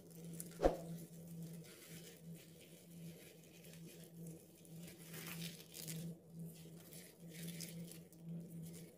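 Soft, faint tearing and rustling of flaky, layered pan-fried flatbread being pulled apart by hand, over a steady low hum. A single sharp tap about a second in is the loudest sound.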